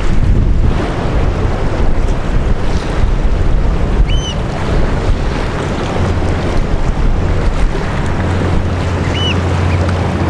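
Wind buffeting the microphone over waves on the water, with a steady low hum underneath that strengthens in the second half. A bird gives a short chirp twice, about four and nine seconds in.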